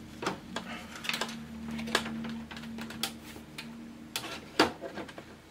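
Clicks, taps and rattles of a desktop PC's sheet-metal case and drive cage being handled and fitted back together, with one sharp knock about four and a half seconds in. A low steady hum runs underneath until about four seconds in.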